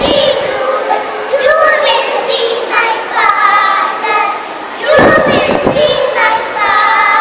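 Group of young girls singing a children's action song together into stage microphones, with a brief loud burst of noise about five seconds in.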